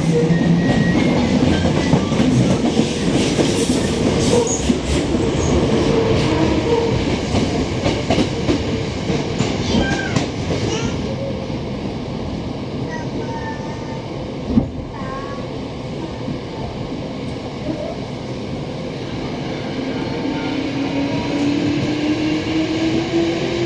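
Hankyu 7000 series electric train running, heard from inside the car, with wheels clicking over rail joints and one sharp knock about fifteen seconds in. Near the end the traction motor whine from its VVVF inverter rises steadily in pitch as the train powers up.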